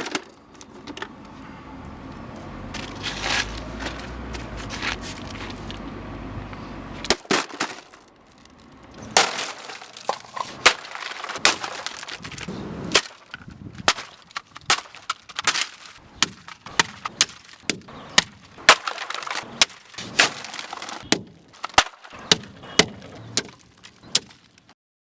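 A coffee maker being smashed with a sledgehammer: a long run of hard blows, about one to two a second, beginning about a third of the way in, with plastic and glass cracking and breaking.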